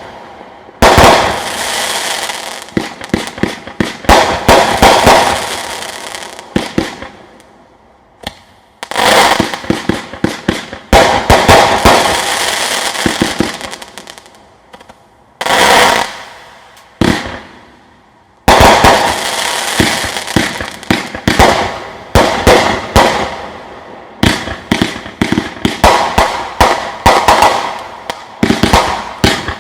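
Consumer firework cakes linked into one compound cake firing in a long sequence: volleys of sharp shots and aerial breaks, one after another, with a few short lulls as the show goes on.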